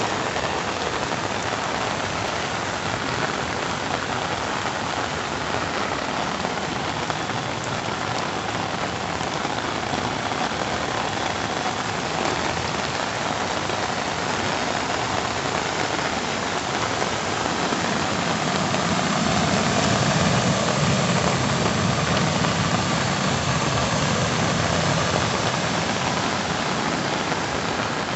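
Steady downpour of rain, mixed with the rush of floodwater churning through a concrete drainage channel. A low rumble swells for several seconds about two-thirds of the way through.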